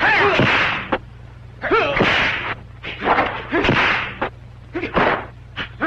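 Kung fu film fight sound effects: whooshing swings and slapping punch hits in quick bursts, mixed with fighters' short shouts, over a steady low hum.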